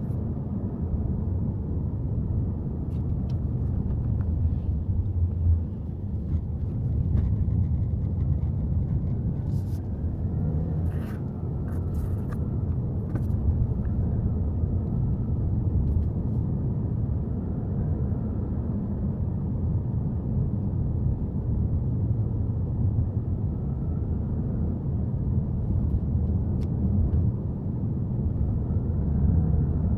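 Steady low road and engine rumble of a Subaru Forester driving up a mountain road.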